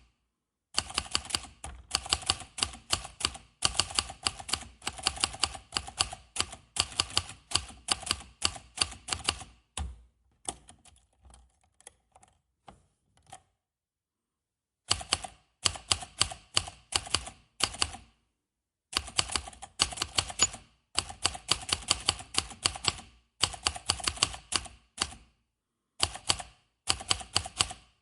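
Typewriter keys struck in quick runs of typing, several strikes a second. About ten seconds in the typing gives way to a few faint clicks, then stops briefly. It resumes about fifteen seconds in.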